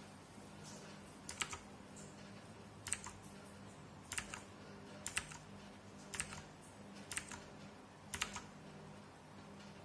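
Keys on a Redragon K551A mechanical keyboard with clicky blue switches being pressed one at a time, about once a second, seven times, each press giving a quick double click.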